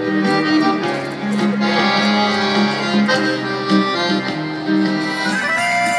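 Accordion playing a tune over held chords.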